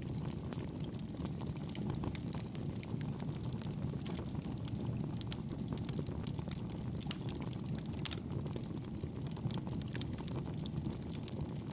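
Fire burning in a fireplace: a steady low rumble of flames with frequent small crackles and pops throughout.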